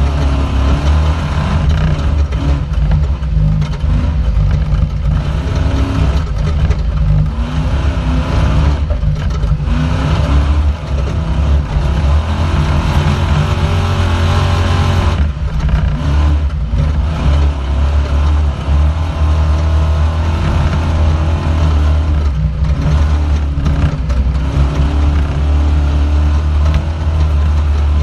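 Off-road race vehicle's engine heard from inside the cockpit, screaming under hard throttle with the revs rising and falling as it shifts and lifts over the course.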